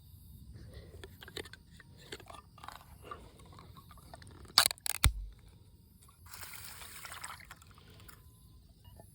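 Scattered small clicks and knocks of things being handled, with two sharp knocks about halfway through, then a rushing sound lasting about a second.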